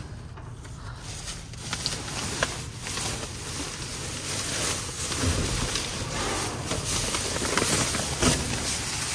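Plastic trash bags rustling and crinkling as they are handled and pulled open, with scattered crackles; it gets louder about halfway through.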